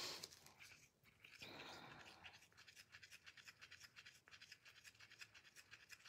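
Faint, quick, even scraping of a thin wooden stir stick against the inside of a small plastic cup, mixing two-part resin and hardener.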